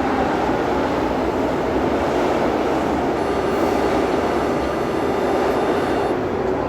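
São Paulo Metro Frota J train car heard from inside while in motion: a loud, steady rumble of wheels and running gear, with a faint high whine of the traction equipment joining from about three seconds in.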